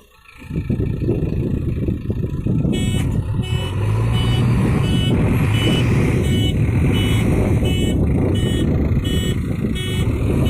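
JCB 3DX backhoe loader's diesel engine running hard. From about three seconds in, its reversing alarm beeps about twice a second.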